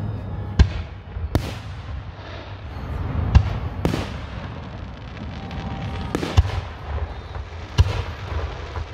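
Aerial fireworks shells exploding: about seven sharp bangs at irregular intervals, some in quick pairs, over a steady low rumble.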